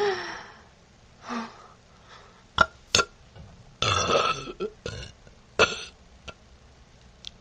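A woman burping repeatedly, close up: a short burp falling in pitch at the start, another about a second later, and a longer one around the middle. A few sharp clicks come between the burps.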